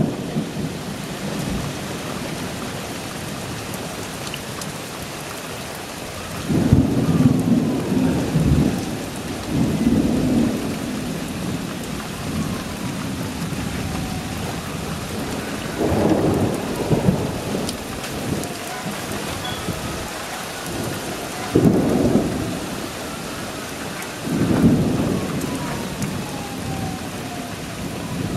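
Steady rain during a thunderstorm, with thunder rumbling about five times; each roll lasts a second or two.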